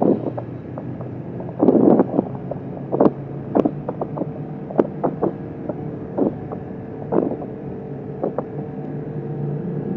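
Kawasaki Vulcan S 650's parallel-twin engine running at a steady cruise, with irregular short bursts of wind noise on the microphone, the biggest about two seconds in.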